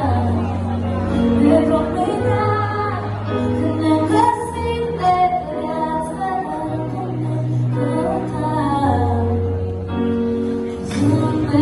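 A song playing, a woman singing over held bass notes that change every second or two.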